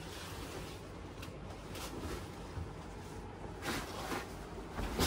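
Rustling and swishing of a cotton bed sheet being handled and spread out: a few short soft swishes, the clearest about two-thirds of the way in and another near the end, over a low steady background hum.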